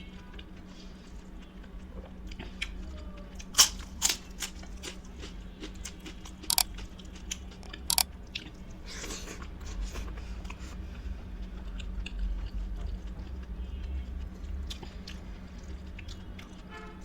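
Close-up eating sounds: a person chewing, with several sharp crunching bites a few seconds apart, the loudest about four and eight seconds in, as of crisp fried food. A faint steady hum runs underneath.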